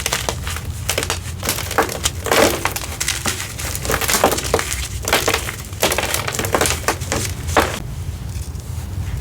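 Hard, over-dried gym chalk reformed with citric acid being crushed, giving dense irregular crunching and crackling. The crackles thin out near the end. A low steady hum runs underneath.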